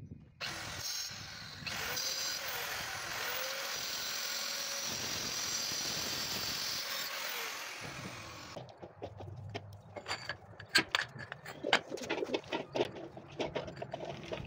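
Handheld angle grinder running and cutting through marble strips, a steady rough whine for about eight seconds that then stops. After it, sharp clinks and knocks of marble pieces being gathered and stacked.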